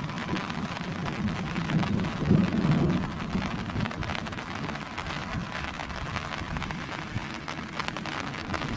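Water splashing and sloshing as hands grope through shallow muddy water, with many small scattered splashes and drips, somewhat louder about two to three seconds in.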